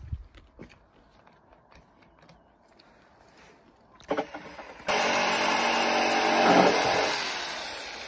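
Corded electric drill driving a screw into a wooden board: a short blip about four seconds in, then the motor runs loud for about two seconds and winds down gradually.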